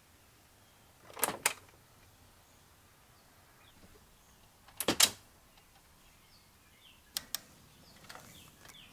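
Three pairs of sharp clicks, spaced a few seconds apart, over quiet room tone, with a few fainter ticks near the end.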